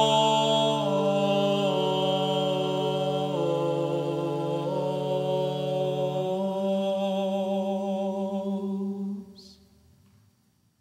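Byzantine chant in Tone 8: a male voice holds the closing notes of the troparion, moving through a few sustained pitches over a low held drone. It stops about nine seconds in, leaving a short fading echo.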